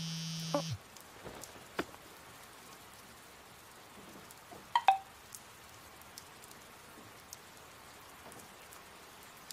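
A phone buzzes once for under a second as a text message arrives. Light rain then falls steadily, with scattered drips and one sharper tap about five seconds in.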